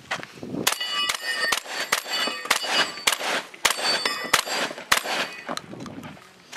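Semi-automatic shotgun (Benelli M2) firing a string of about ten shots at a steel spinner target. The hit steel plates clang, ringing on after the shots.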